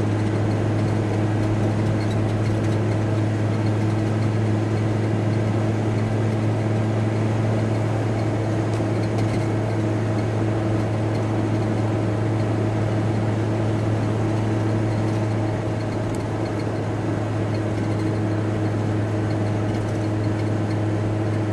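VW T4 Transporter van on the move, heard from inside the cab: a steady low engine and road drone with a constant hum, easing slightly about two-thirds of the way through.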